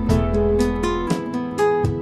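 Instrumental background music led by a plucked acoustic guitar, notes picked in a steady run over sustained low notes.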